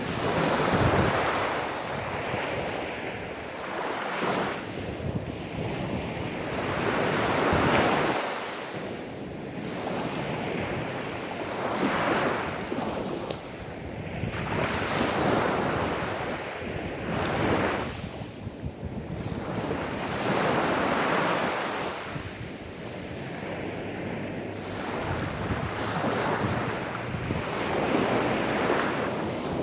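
Gentle sea waves washing onto a sandy beach, a soft surge of surf every few seconds that rises and falls away.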